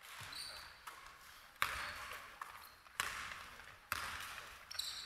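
A basketball bouncing on a hardwood court in a large, echoing sports hall, a few sharp bounces, with short high sneaker squeaks on the floor near the start and near the end.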